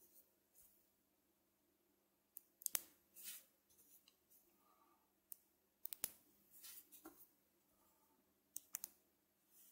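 Small neodymium magnet balls clicking as they snap together under the fingers. The clicks come in scattered groups, some in quick pairs and triples, with softer rubbing and rolling of the balls between them.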